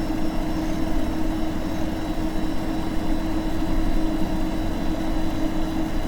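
A steady low rumbling drone with a constant hum tone running through it.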